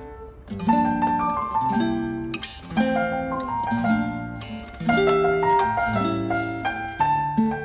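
Background music: plucked, harp-like instrumental notes in a steady melodic pattern.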